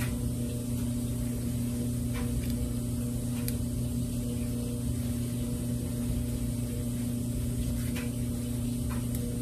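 Washer and dryer running: a steady low hum with a few faint ticks.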